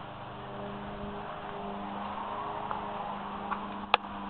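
A low, steady engine hum that swells a little through the middle and eases off, with one sharp click near the end.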